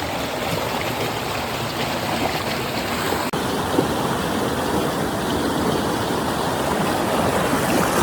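Flowing water of a stream, a steady rushing, with a tiny break and a slight change in tone about three seconds in.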